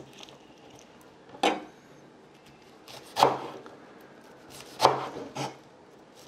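Cleaver slicing through a stack of wild betel leaves onto a wooden cutting board: four sharp knocks at uneven spacing, the second and third the loudest.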